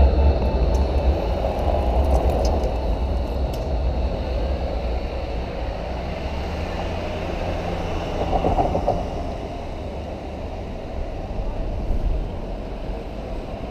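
A Berlin Flexity low-floor tram rolls along street track, loudest at the start and slowly fading as it moves away. A car passes about eight seconds in.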